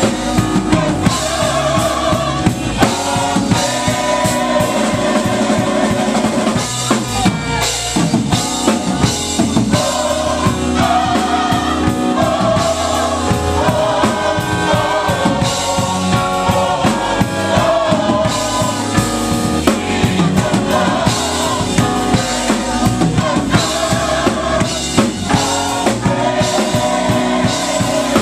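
Live gospel music: a drum kit plays a busy beat with bass drum, snare and rimshots under the band, with singing over it.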